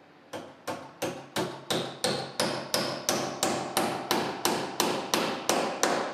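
A hammer striking an old iron hinge set into the wooden edge of a cupboard, about seventeen even blows at roughly three a second, each with a short metallic ring. The first two blows are lighter.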